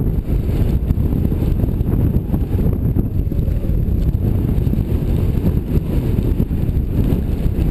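Wind buffeting the microphone of a camera carried by a skier going downhill: a loud, steady low rumble.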